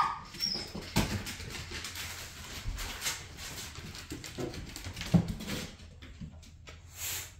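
A small terrier jumping down from a wooden window seat and scrambling across a hard floor and back up: claws clicking and scrabbling on wood, with a couple of louder thumps as it jumps, about a second in and again after five seconds, and some short whining.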